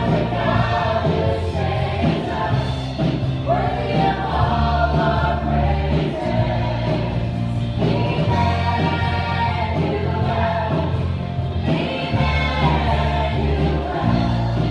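A woman sings a gospel worship song through a microphone, accompanied on an electric keyboard, with a steady bass line beneath.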